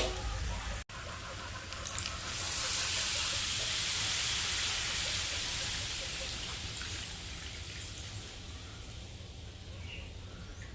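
Food sizzling in a hot pan: a loud hiss swells up about two seconds in and slowly dies away over the following seconds.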